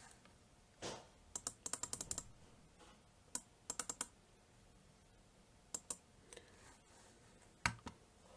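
Computer keyboard typing in short runs of keystrokes: a quick burst of about eight keys, then a few small groups of two to four, and a single louder click near the end.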